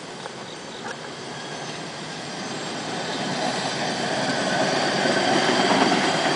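Ford hi-rail inspection truck rolling along the railway track on its rail guide wheels. It grows steadily louder as it comes up to and past the camera, and a faint high whine joins in during the second half.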